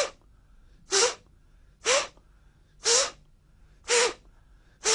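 A man's short, sharp breaths in a steady rhythm, about one a second, six in all, each loud and hissy. They are the forceful breathing of an Emei Paida Gong qigong exercise, done as he sways left and right.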